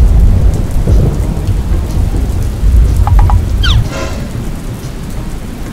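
Thunderstorm sound effect: heavy rain falling steadily, with a deep rumble of thunder through the first four seconds or so that then dies down.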